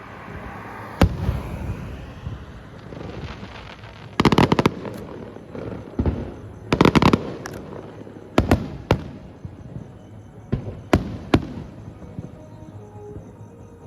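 Aerial fireworks shells bursting a few hundred metres away: a string of sharp reports, with two dense rapid crackling volleys about four and seven seconds in.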